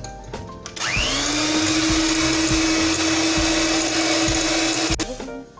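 Electric hand mixer starting about a second in, its motor spinning up quickly to a steady whirr as the beaters whip eggs and caster sugar into batter, then switched off abruptly near the end.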